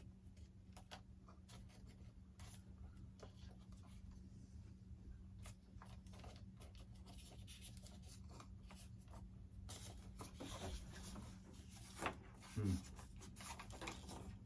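Faint scattered clicks and rubbing as a wire lead with bulky plugs is worked through a hole in a foam RC jet airframe, over a steady low hum.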